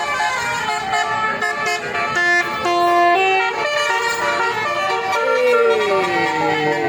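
Bus's musical basuri horn (telolet) playing a tune of held notes that change pitch step by step, followed about five seconds in by a long tone sliding down in pitch.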